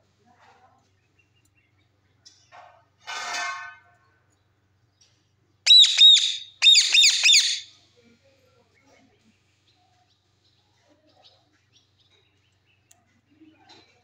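Indian ringneck parakeet calling: one short harsh squawk about three seconds in, then two quick bursts of loud, shrill, rapidly repeated calls a couple of seconds later.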